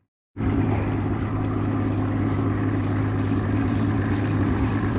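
Outboard motor running steadily at trolling speed, an even drone that cuts in abruptly a moment after a brief gap.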